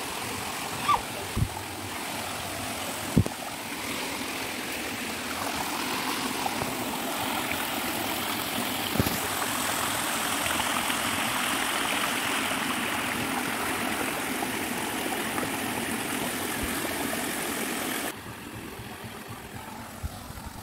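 Stream water rushing over rocks, a steady rush that swells a few seconds in and falls away suddenly near the end. A few sharp knocks come through in the first few seconds.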